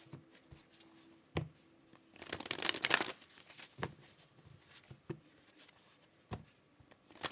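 A deck of oracle cards being shuffled by hand. There is a sharp tap about a second and a half in, then a longer riffle of cards sliding against each other that lasts about a second, then a few soft taps of the deck being squared.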